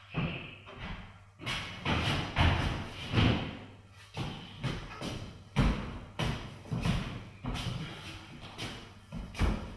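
A series of dull thumps and knocks, about one or two a second, over a faint low steady hum.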